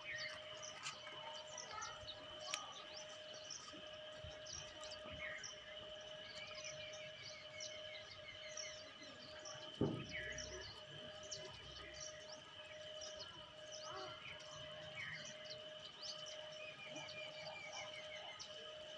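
Many small birds chirping and twittering, with a steady thin tone running under them. One louder brief sound comes about ten seconds in.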